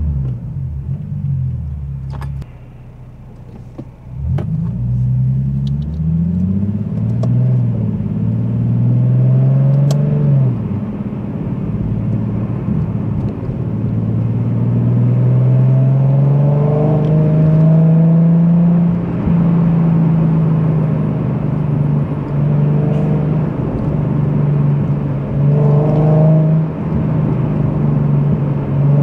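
Nissan 370Z's 3.7-litre VQ37VHR V6 engine and exhaust under way. The revs drop off briefly about two seconds in, then climb and fall through several gear changes, then hold nearly steady at cruising revs.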